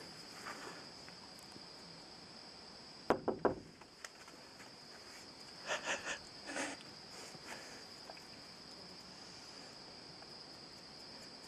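Night insects chirring in one steady high, thin tone. Three quick soft thumps come about three seconds in, with a few quieter shuffles around six seconds.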